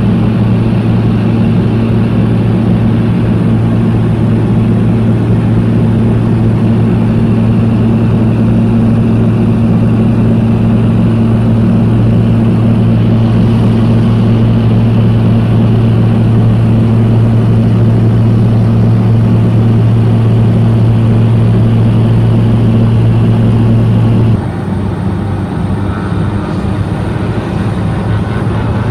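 Steady engine and propeller drone of a propeller aircraft in flight, heard inside its cabin, with a strong low hum. About 24 seconds in it cuts to a quieter, rougher turboprop engine noise with a faint high whine, from a turboprop on the runway.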